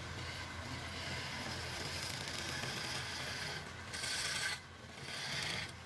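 Wood lathe running with a flat steel turning tool held against the spinning wooden pot: a steady scraping hiss over the motor's low hum. The scraping grows louder for about a second past the middle, then briefly eases off.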